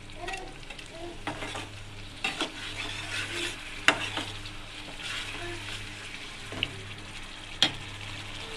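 Thick tomato and beetroot bhaji mixture sizzling in a metal kadai while a metal spatula stirs it, clinking and scraping against the pan every second or two.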